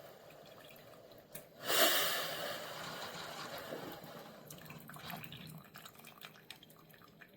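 Single-serve coffee maker brewing: a sudden hiss of hot water and steam starts about two seconds in and fades, followed by liquid trickling and dripping with small ticks.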